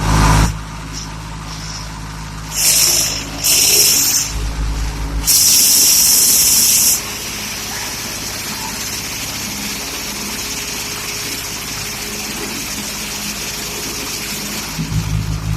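Engine-driven wood chipper running steadily, with three loud bursts of high hissing noise in the first half.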